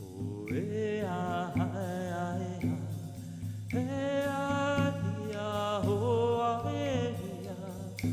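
A man singing a wordless chant in long held notes that slide between pitches, over a steady low drone, with a frame drum struck at a slow, even pace.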